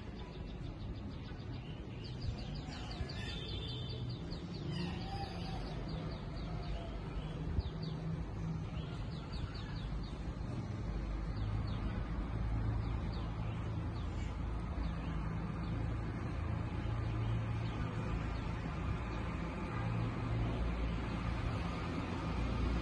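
Outdoor ambience on a rainy day: a steady hiss of rain, with a bird chirping in quick runs during the first half. A low rumble builds in the second half.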